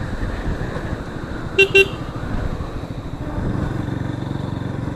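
Steady rumble of a Bajaj Pulsar NS200 motorcycle on the move, with wind buffeting the microphone. About a second and a half in, a vehicle horn gives two short toots.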